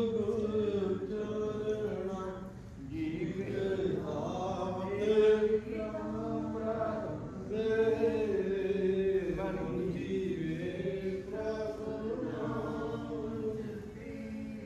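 Group of voices chanting Sikh devotional verse (gurbani) together in a slow melody with long held notes.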